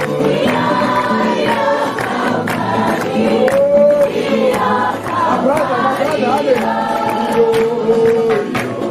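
A group of voices singing a worship song together in chorus, over a steady percussive beat.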